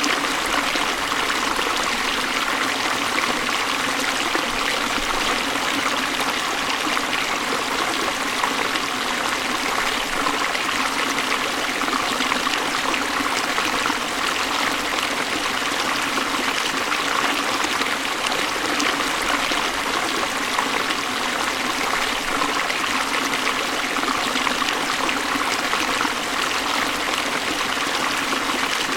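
Waterfall running steadily: an even, unbroken rush of falling water, bright and hissy with little deep rumble.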